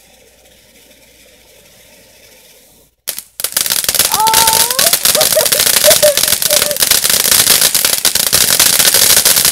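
Ground fountain firework crackling, a loud, dense run of rapid pops that sets in suddenly about three seconds in and keeps going. Before that there is only a faint hiss.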